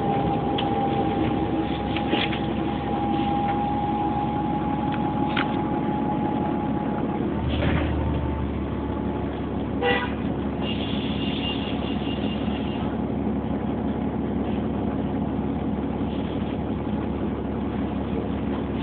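Inside a city bus slowing to a stop: the engine runs with a steady whine that ends about seven seconds in as the bus halts, then the idle carries on. A sharp click comes about ten seconds in, followed by a high electronic tone lasting about two seconds.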